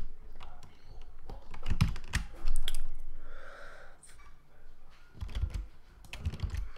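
Computer keyboard keys tapped in short, irregular clicks as shortcuts are pressed, with a few duller low knocks in between.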